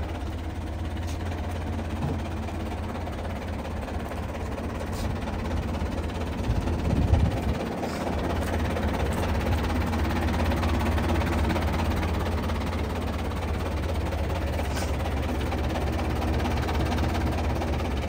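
Tractor's diesel engine idling steadily, with a brief louder patch about seven seconds in.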